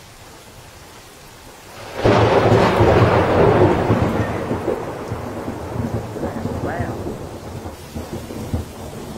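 Thunder: a sudden loud crack about two seconds in, then a long rolling rumble that slowly fades.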